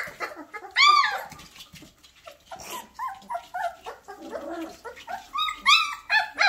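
A litter of 19-day-old Goldador puppies giving high, squeaky little barks and whimpers as they play. A strong yelp comes about a second in, weaker squeaks follow, and two more yelps come close together near the end.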